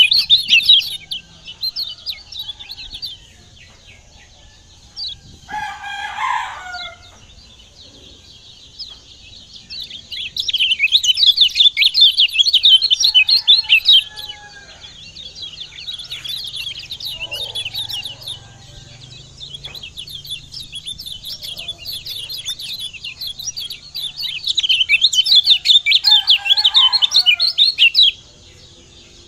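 Lemon-bellied white-eye (kecial kuning) singing its fast, short chattering song in three long bursts, one at the start, one about ten seconds in and one near the end, with quieter chirps between them. A rooster crows twice, a few seconds in and near the end.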